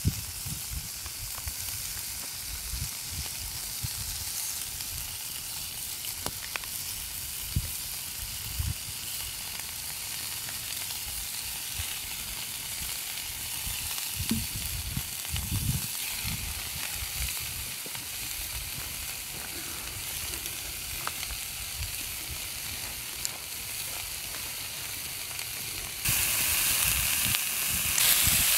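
Slices of country-style ham frying in a skillet over a campfire: a steady sizzle that turns louder and brighter near the end.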